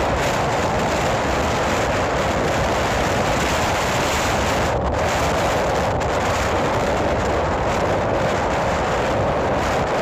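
Wind buffeting the microphone: a steady, unbroken rumble with hiss over it, never letting up.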